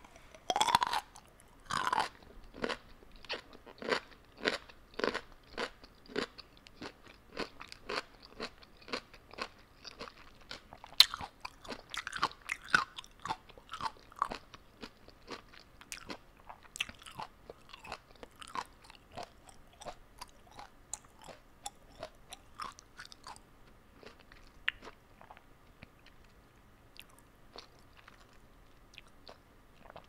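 A person biting into crunchy food and chewing it with open crunches, about one and a half a second. The first bites are the loudest, with one sharp crack about a third of the way in, and the chewing grows fainter and sparser near the end.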